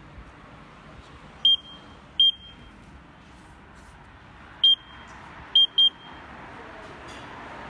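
Keypad of a CVT/AT transmission fluid exchange machine beeping as its buttons are pressed to set values: five short high beeps, the last two in quick succession.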